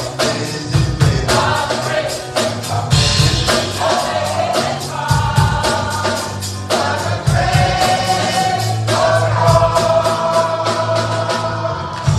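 Gospel choir singing with a band, a steady drum beat driving it.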